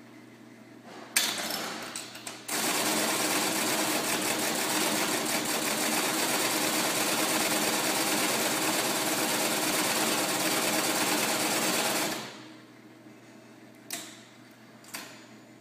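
IBM 026 keypunch running with a fast, even mechanical clatter for about ten seconds as the card is released and the next one fed through. It starts after a sharp click about a second in and stops abruptly, with one small click near the end.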